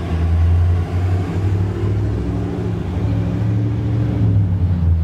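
An engine running steadily at idle, a constant low hum.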